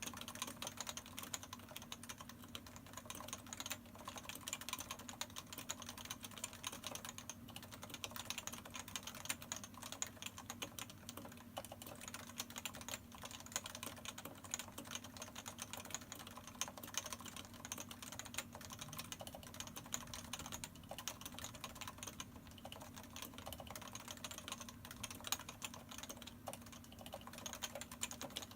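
Continuous fast typing on a Topre Realforce 104u keyboard: 45 g electrostatic capacitive Topre switches under PBT dye-sub keycaps, keystrokes coming several per second without a break.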